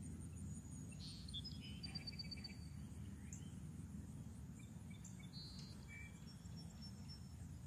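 Songbirds calling faintly: short chirps, a couple of quick trills in the first two seconds, and thin high whistles a little past the middle, over a steady low rumble.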